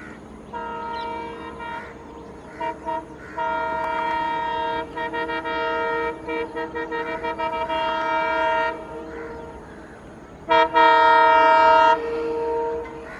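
Horns of a pair of WDG3A diesel locomotives honking loudly to warn people at a level crossing: a blast about half a second in, two short toots, a long blast that breaks into a run of quick toots, then the loudest blast near the end.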